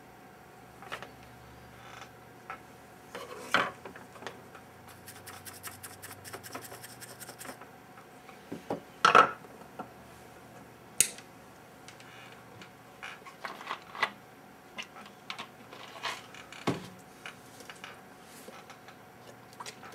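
Small tools and parts handled on a workbench during chip rework: scattered clicks and knocks, with a quick run of fine scratching strokes a few seconds in.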